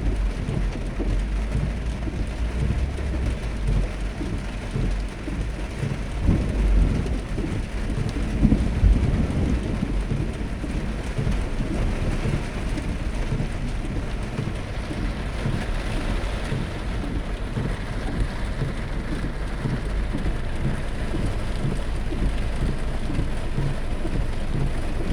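Heavy downpour pattering hard and steadily, with a low rumble underneath that swells about six and again about nine seconds in.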